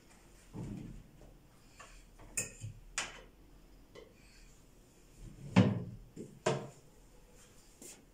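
Kitchen handling noise: a handful of separate knocks and clatters, like dishes and cupboard doors being handled, the loudest a little past halfway.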